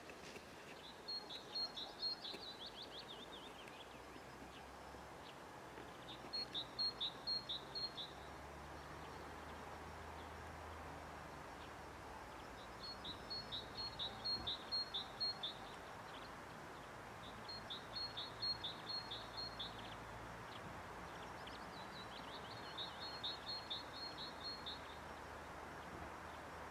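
A songbird singing a short phrase of quick repeated high notes, five times at intervals of about five seconds, over a steady faint outdoor background hiss.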